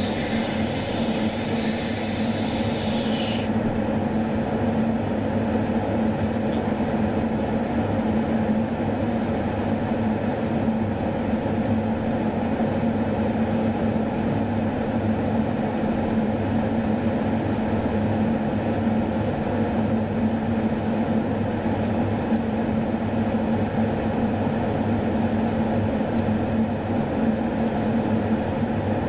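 Steady drone inside an aerial refueling tanker in flight: engines and airflow making a constant rumble with a steady hum. A high hiss lies over it for the first three seconds or so.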